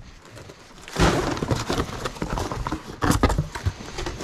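Cardboard box being handled: a thump about a second in, then scraping and rustling of cardboard with sharp knocks around three seconds in as its flaps are opened and the contents shift.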